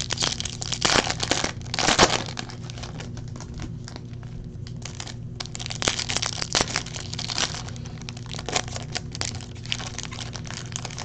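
Foil wrapper of a Topps Finest trading-card pack crinkling and tearing as it is opened by hand, mixed with the slap and riffle of cards being handled. The crinkling comes in uneven flurries, loudest near the start and again about six seconds in, over a steady low hum.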